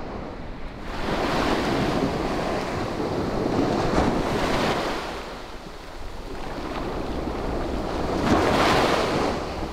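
Surf washing up a sandy beach in two swells, the second near the end, with wind rumbling on the microphone.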